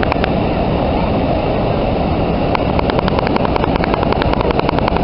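Mountain stream rushing over rocks, a loud steady rush. A little over two seconds in, a rapid run of high ticks, about ten a second, joins it for about two seconds.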